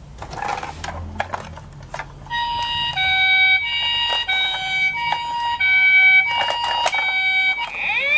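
Toy ambulance's electronic siren sounding a two-tone high-low 'pee-po' pattern, repeating steadily, after a couple of seconds of toy cars knocking and rustling in a cardboard box. Near the end a rising wail siren starts.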